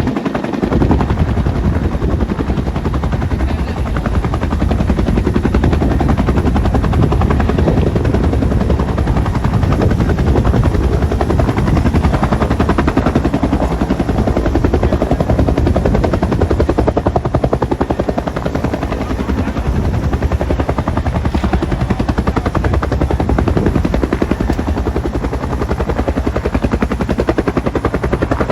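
Bell 212 helicopter running loud and steady, its rotor blades beating in a fast, even rhythm over the turbine noise.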